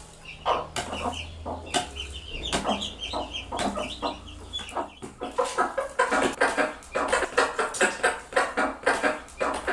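Mother hens clucking over food while their chicks peep in short high calls; from about five seconds in the hens' clucks come in a fast, steady series.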